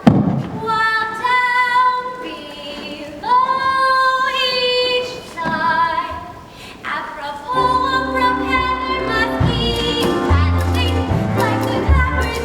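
A woman singing a musical-theatre number over accompaniment, with long held notes that waver in pitch. About halfway through, the accompaniment fills out with a deep bass beneath the voice.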